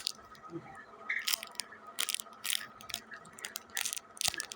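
Irregular crinkling and clicking of plastic-packaged squishy toys being picked through and handled.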